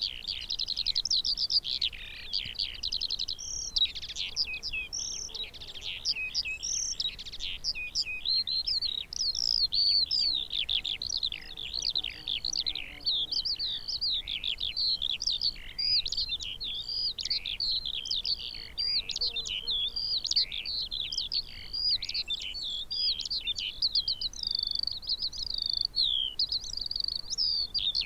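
Eurasian skylark singing: one long, unbroken stream of rapid, quickly changing high trills, chirps and whistles with no pause.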